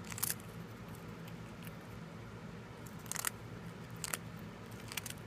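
Long-haired teddy bear (Syrian) hamster biting into a cracker: four brief, faint crunches, one near the start and three in the last two seconds, over a steady low hum.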